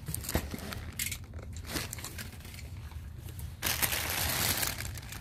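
Clear plastic packaging bags crinkling and rustling as they are handled by hand, with scattered light knocks at first and a steadier, louder crinkling from about three and a half seconds in.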